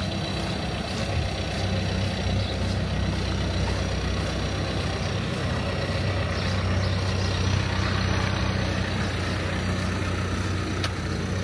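A large engine idling, a steady low hum that holds even throughout.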